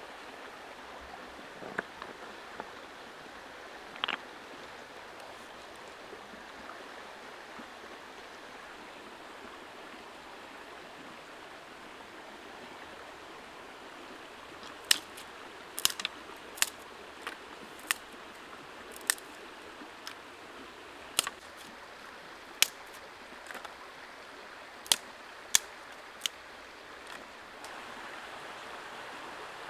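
Steady rush of a shallow stream running over rocks. From about halfway through, a dozen or so sharp clicks and snaps come at irregular intervals over about ten seconds, louder than the water.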